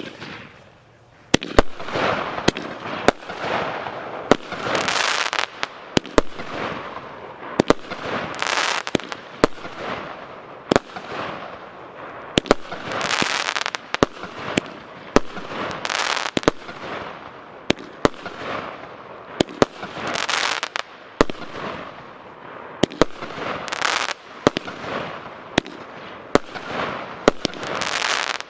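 Consumer fireworks battery of 25 shots in 30 mm calibre firing shot after shot, about one a second, starting about a second and a half in. Each shot is a sharp bang followed by a short wash of hissing crackle from the bursting stars.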